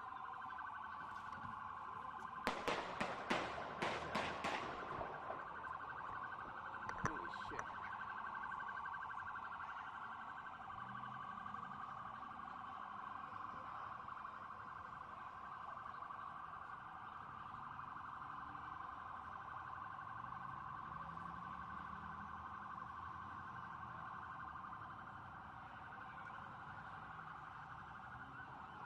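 Emergency vehicle sirens sounding steadily without a break. About two and a half seconds in, a rapid series of about seven sharp bangs, then two more around seven seconds.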